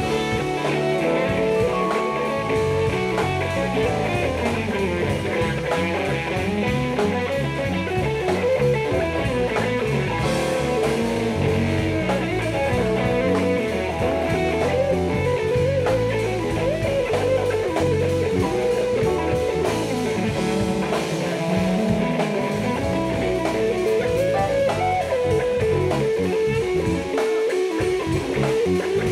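A live jazz-funk band playing, with electric guitar lines over a drum kit groove.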